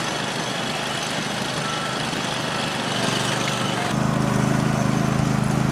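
Diesel engines of Deere heavy earthmoving machinery running steadily. About four seconds in the sound changes abruptly to a louder, deeper engine note.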